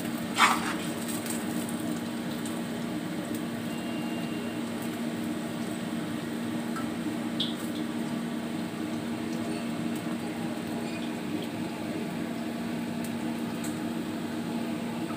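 Potato fries coated in cornflour and rice flour deep-frying in hot oil in a kadhai on a burner turned up full: a steady sizzle and bubbling over a steady low hum. A single sharp knock of the metal spatula against the pan about half a second in.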